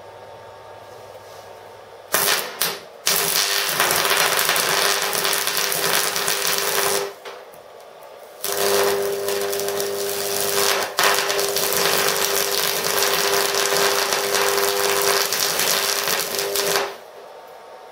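AC stick-welding arc from a homemade microwave-oven-transformer welder: the electrode is struck with a few short crackles about two seconds in, then burns with continuous loud crackling for about four seconds, stops, and is restarted for about eight more seconds with a steady hum beneath the crackle before the arc breaks off near the end.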